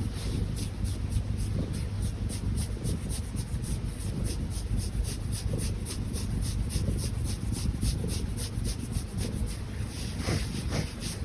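Fingers rubbing rhythmically through a cat's fur during a neck massage, a fast scratchy stroking at about four or five strokes a second.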